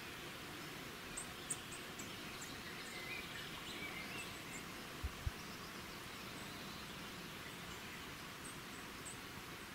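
Steady outdoor ambience hiss with faint, short, very high chirps scattered through it. About five seconds in come two brief low thumps in quick succession.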